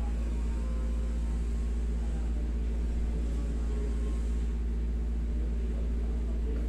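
Window-type air conditioner running with a steady low hum.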